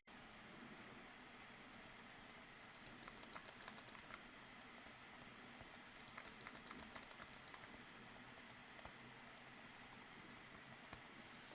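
Faint typing on an Acer Predator Triton 700 laptop keyboard: two quick runs of key clicks, about three and six seconds in, then scattered single keystrokes.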